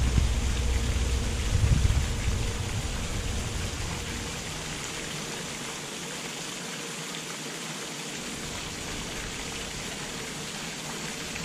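Wind buffeting the microphone as a rumble that dies away after the first two or three seconds, leaving a steady, even hiss of wind outdoors.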